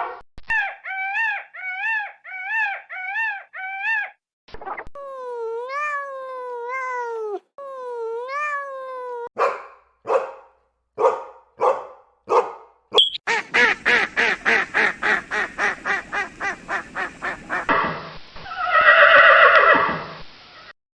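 A string of different animal calls, one after another. First come about six short, high, arched cries. Then there are three longer calls that rise and fall, a handful of short sharp calls, and a fast run of about five pulses a second. A long harsh call comes near the end.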